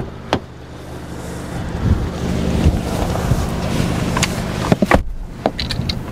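Kia Stinger's turbocharged four-cylinder engine idling steadily, with wind rumbling on the microphone, which grows louder after about a second and a half. A few sharp clicks and knocks come through, one just after the start and several near the end.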